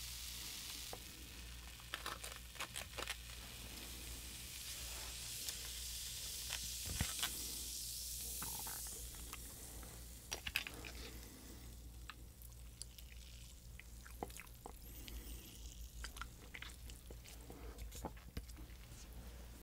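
Fizzing of the foaming cola-style drink made from the Popin Cookin candy-kit powder in a small cup: a steady hiss that fades about nine seconds in. Scattered light clicks follow.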